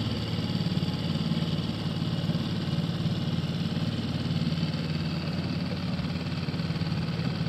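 Small outboard motor driving an inflatable dinghy, running steadily with an even, fast-pulsing note.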